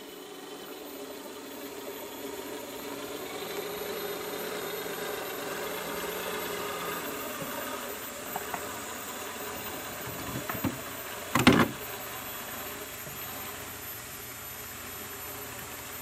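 Electric motor and geared drivetrain of an Axial SCX10 RC rock crawler with portal axles whining steadily as it crawls up a rock, with a few light knocks and then a louder short clatter about two-thirds of the way through.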